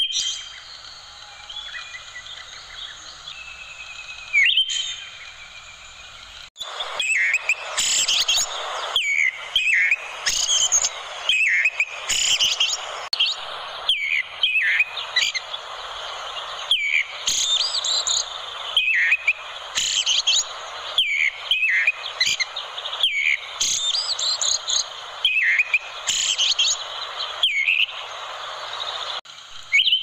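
Thrush (anis kuning) song: repeated short phrases of high whistles and rapid sweeping notes, about one a second with brief gaps between them. It is quieter at first and steps up suddenly about six seconds in.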